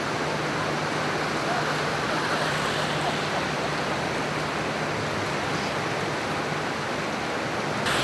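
The swollen Drina river in flood, its fast water rushing with a steady loud roar. A faint low hum sits underneath and stops shortly before the end.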